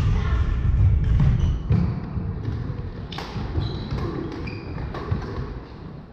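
Badminton rackets striking shuttlecocks, a series of sharp cracks a second or so apart, in a large hall. Between the hits, players' shoes thud and squeak briefly on the wooden court, the thudding heaviest in the first two seconds.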